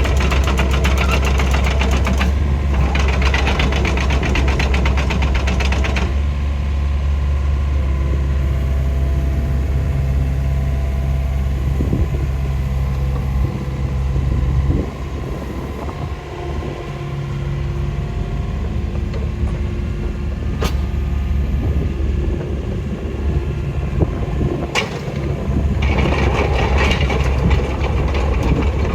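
Takeuchi TB150C midi excavator's diesel engine running with a fast clatter. It is louder for the first few seconds, eases down to a quieter run after about six seconds, and picks up again near the end.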